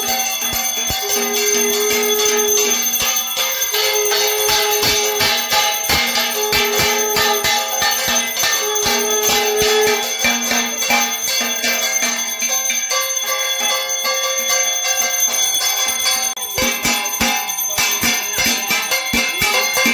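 Small brass puja hand bell rung rapidly and continuously during aarti, over devotional music with a repeating melodic phrase of held notes that fades out about halfway through.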